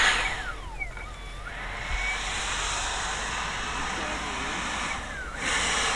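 Schübeler electric ducted fan of a CARF Spark RC jet giving a high, steady rushing whoosh that grows about two seconds in and swells louder near the end as the jet accelerates down the runway on its takeoff roll.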